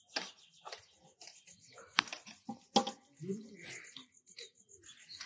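Scattered light clicks and knocks of handling as marinated chicken pieces are lifted out of an aluminium pot, with a sharper knock about two seconds in.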